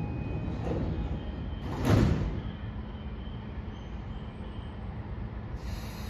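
A train's sliding passenger doors shut with a single thud about two seconds in, over the steady low hum of the train at rest.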